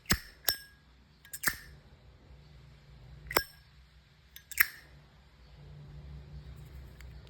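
Replica Zippo-style windproof lighter's hinged metal lid flicked open and snapped shut: a series of sharp metallic clinks, each with a brief ring, some coming in quick pairs.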